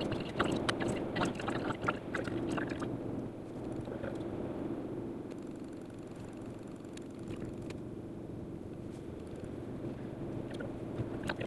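Steady engine and tyre rumble heard from inside a moving car, played back at four times speed. The first few seconds carry a busy run of quick clicks and rattles over the rumble.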